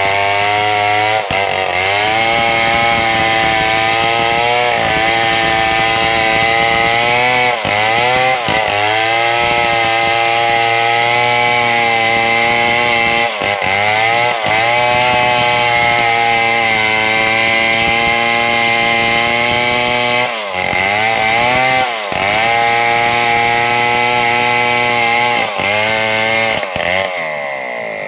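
Chainsaw running at high revs while cutting a large log, its engine pitch dipping and recovering several times. The revs wind down near the end.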